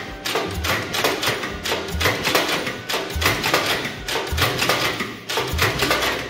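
1947 Farmall B's four-cylinder engine cranking slowly on its starter for a compression test, a gauge in one spark-plug hole: an even beat of about three strokes a second with a heavier thump about every second. It cuts off at the end.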